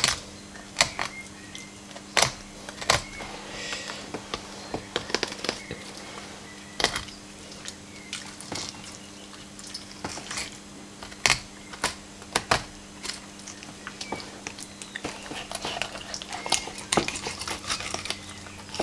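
Filleting knife cutting through a red cod's flesh and ribs on a wooden cutting board, with irregular sharp clicks and taps of the blade on bone and board and a little scraping. A steady low hum runs underneath.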